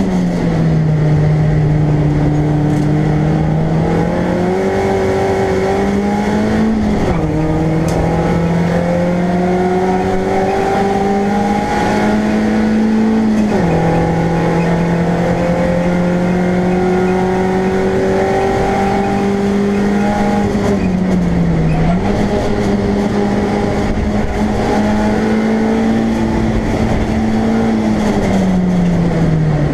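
BMW Compact race car's engine running hard, heard inside the stripped cabin. Its note climbs steadily under power and drops sharply a couple of times at gear changes, then falls away twice more as the car slows for corners, the last near the end.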